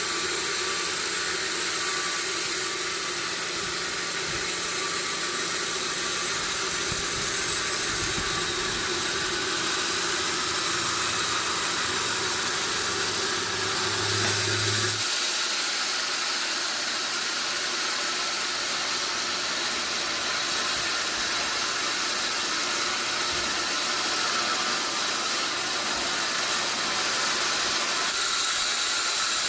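Sawmill machinery running: a steady mechanical hum under a loud hiss. The low hum drops away abruptly about halfway through.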